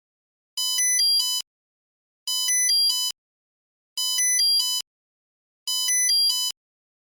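Old phone's electronic ringtone beep: a short burst of quick, shifting electronic notes, repeated four times about every 1.7 seconds with silence between.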